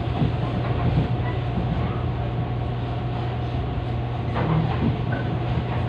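Taiwan Railways EMU500 electric multiple unit running along the line: a steady low hum over an even rolling rumble, with a faint steady tone above it.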